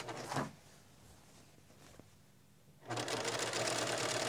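Electric sewing machine stitching a binding strip onto a quilt edge. It stops about half a second in, and after a quiet pause with one faint click it starts up again about three seconds in and runs steadily.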